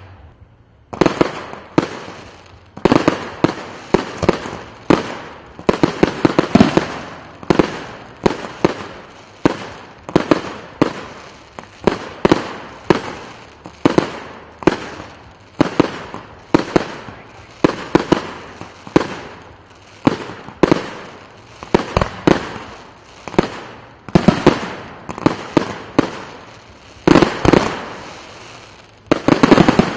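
Aerial fireworks shells bursting in a steady run, about one or two loud bangs a second, each trailing off. There is a short lull about a second in, and the loudest bursts come near the end.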